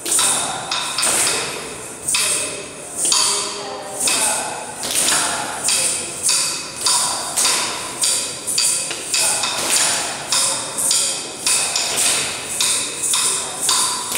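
Sharp wooden knocks of a stick beating time for Bharatanatyam practice, each with a brief ring. They come about once a second at first and speed up to about two a second from about four seconds in.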